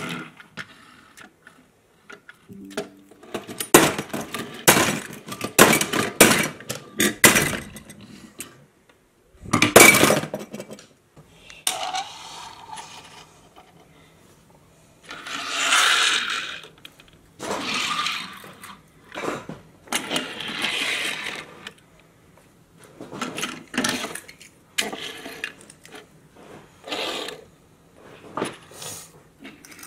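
Die-cast metal toy cars rolled and set down on a tabletop, clicking and clinking as they knock against the table and each other, with stretches of wheels rolling along the surface.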